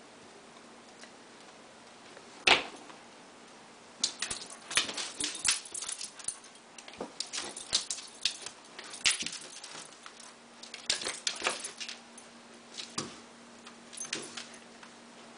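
Pembroke Welsh corgi puppy scrambling and pouncing after a feather toy: runs of quick clicks and scuffles from its feet and the toy, after one sharp loud sound about two and a half seconds in.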